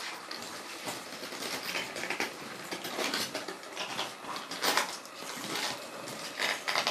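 Steel ice crampons crunching and scraping on ice underfoot, with irregular metallic clinking steps; the loudest crunches come about two-thirds of the way through and again near the end.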